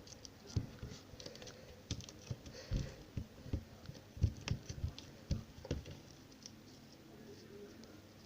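Hands kneading and squeezing a sticky glue-and-borax slime, making irregular soft squishy clicks and pops. They thin out after about six seconds.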